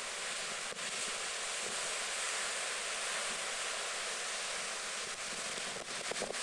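Storm-surge waves breaking and washing over a concrete slipway wall: a steady hiss of surf without let-up.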